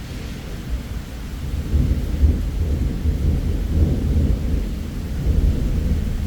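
Thunder rumbling in a long, deep roll that swells about two seconds in and eases off near the end, over a faint hiss of rain.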